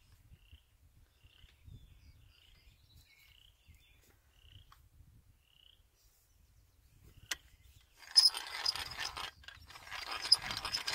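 Egg-beater style hand drill cranked from about eight seconds in: its gears give a rapid, loud clicking rattle, with a brief pause partway through. Before that, only faint repeated chirps, likely birds.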